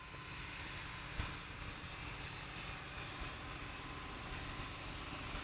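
Steady outdoor noise, an even hiss over an uneven low rumble, with a single short bump about a second in.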